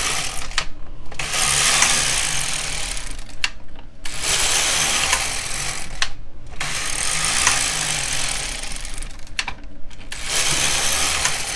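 Carriage of a Silver Reed LK 150 plastic-bed knitting machine pushed back and forth across the needle bed, knitting rows of waste yarn. Each pass is a rattling slide of two to three seconds, with a short pause at the end before the next. There are about five passes.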